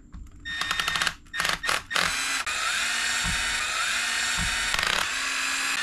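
Milwaukee cordless electric screwdriver backing out the screws of an RC car's receiver box. It runs in several short bursts, then runs steadily from about two seconds in.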